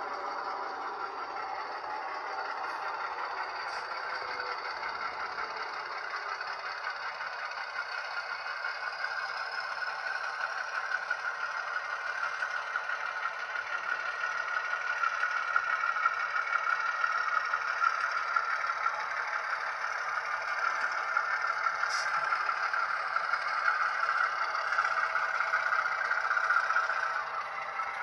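Model railway train running on the layout track: a steady rattling clatter of wheels and running gear, growing louder through the second half.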